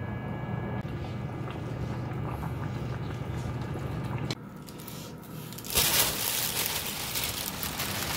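Vegetables being tipped into a steel pot of simmering chicken soup on an induction cooktop, over a steady low hum. About six seconds in, a louder even rustling hiss starts as bean sprouts go into the pot.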